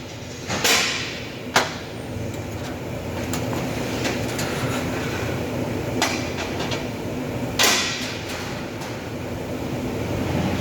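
Several sharp metallic knocks and cracks, five or so spread unevenly, over a steady workshop hum: metalwork on sheet-steel distribution-board doors.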